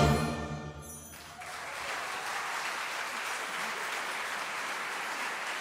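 The final chord of a concert wind band fades away over about a second, then audience applause starts and carries on steadily.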